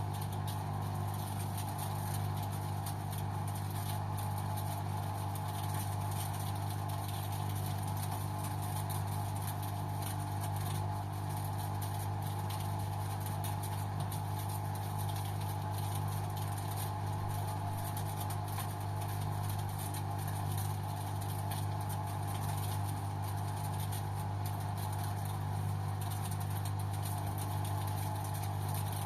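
LG washing machine running on its Synthetic 30 programme: a steady low motor hum with a higher whirr above it, unchanging throughout.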